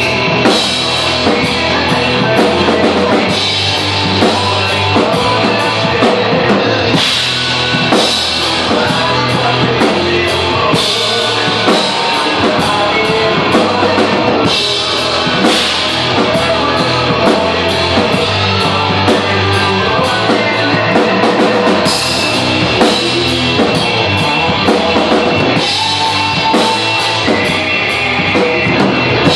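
Acoustic drum kit played with a rock beat along to a rock track with guitar, with cymbal crashes every few seconds.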